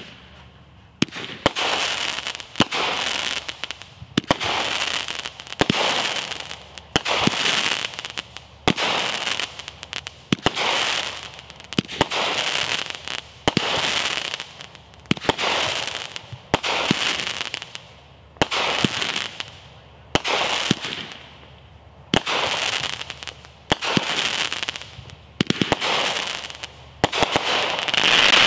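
Enigma Hydrus 200-gram firework cake firing shot after shot, about one every one and a half seconds. Each shot is a sharp report followed by about a second of hissing crackle from the bursting spider and crackling stars.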